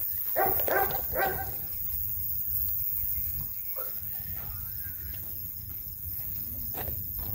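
A dog barking, twice in quick succession about half a second to a second and a half in, over a steady low rumble.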